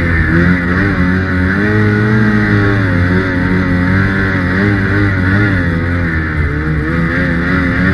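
Ski-Doo Summit 850's two-stroke twin engine running as the snowmobile rides along, its pitch rising and falling with the throttle.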